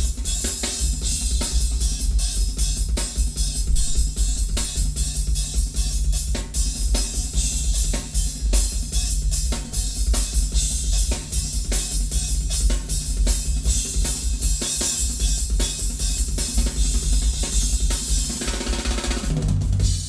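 Drum-heavy percussion music, with a full drum kit of bass drum, snare and rimshots hitting densely, played back through a vintage Sansui QRX-7500 receiver.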